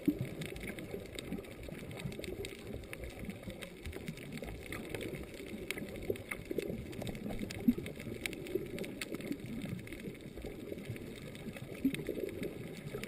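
Underwater ambience: a low, muffled rush of water with scattered faint clicks and a few sharper knocks, one about eight seconds in and one near the end.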